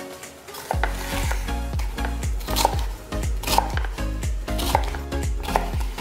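Background music whose deep bass line comes in about a second in. Over it, a kitchen knife cuts through red bell pepper onto a wooden cutting board, with sharp strokes about once a second.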